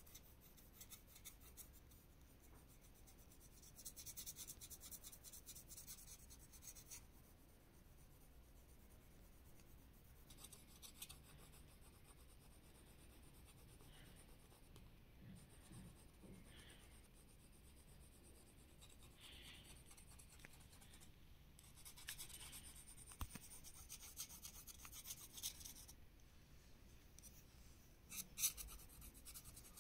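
Pencil shading on paper: faint scratchy strokes that come in spells, strongest about four to seven seconds in and again from about twenty-two to twenty-six seconds in, with a short burst near the end.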